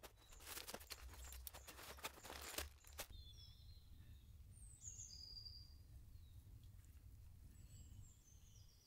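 Nylon stuff sacks and gear rustling and crinkling as a backpack is unpacked onto grass for the first three seconds or so. Then it is nearly silent apart from faint bird chirps.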